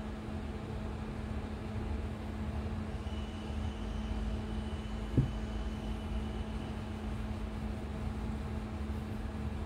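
Steady low machine rumble with a constant hum, and a single sharp knock about five seconds in.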